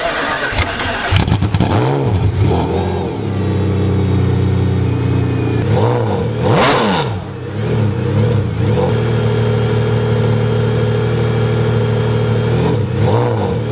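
Mercedes-Benz CLK GTR's V12 running at idle with a series of throttle blips, the biggest rev about halfway through.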